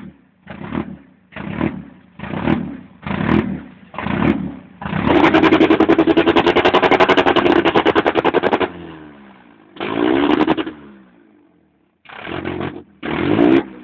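An Alfa Romeo car engine being revved: five short blips, then held high for about four seconds before dropping back in a falling tone, one more short blip, a brief pause, and two more blips near the end.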